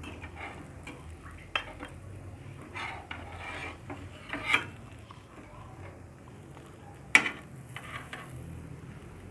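A cooking utensil scraping and tapping against a small nonstick pan as bread toasts in it, with a few sharp clicks, the loudest about seven seconds in.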